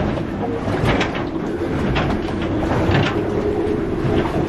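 Storm wind buffeting the moored boat, heard from inside the cabin as a continuous rush with a steady low howl and occasional faint knocks.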